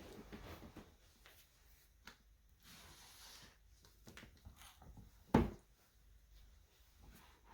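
Quiet room with soft handling noises: a brief rustle, then one dull thump about five seconds in.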